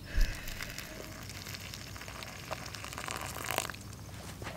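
Water poured from a cooking pot into a foil freeze-dried food pouch: a thump as the pour begins, then a steady splashing trickle for about three and a half seconds. The pouch crinkles near the end.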